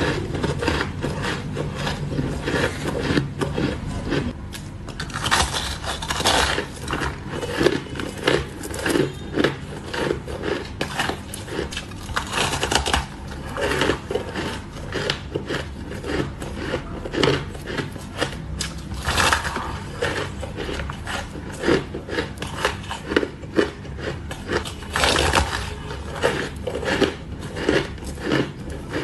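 Close-up crunching and chewing of soft, frosty shaved-ice blocks, about two crunches a second, with several louder bites spaced through it.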